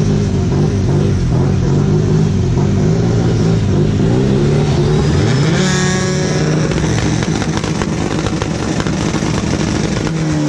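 Drag-race car engines running loud and steady at the staging lanes, with an engine note rising and falling about six seconds in.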